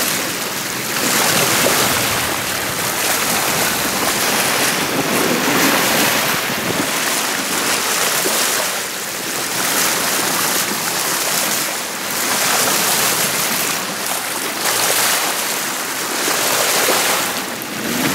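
Water rushing along a sailboat's hull at the bow as it motors through calm sea, with wind on the microphone, swelling and easing every few seconds.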